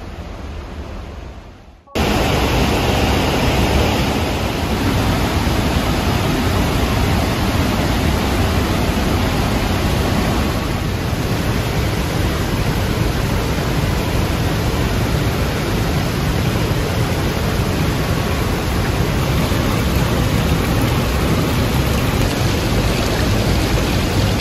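Steady rush of fast-flowing water. It is quieter for the first two seconds, then abruptly louder and even.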